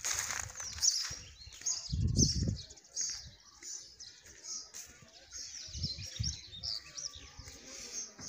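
Small birds chirping in quick, repeated high notes throughout, with one louder low rumble about two seconds in.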